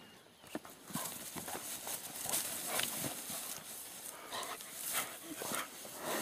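A dog making short, irregular noisy sounds, a few each second, starting about a second in.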